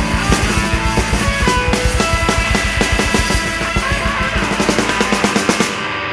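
Fast, loud rock music driven by a drum kit. The low drums drop out for about a second near the end.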